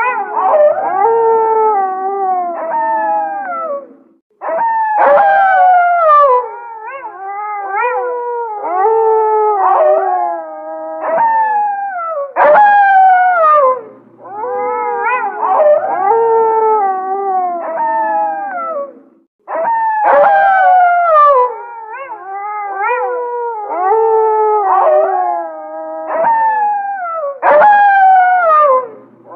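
A pack of wolves howling in chorus. Several overlapping howls slide down in pitch, and the chorus breaks off briefly a few times before starting again.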